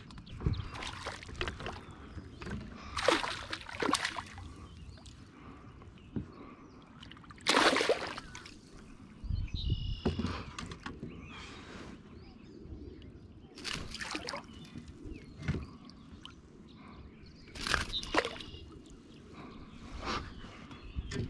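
Water splashing and sloshing right beside a fishing kayak in short bursts every few seconds.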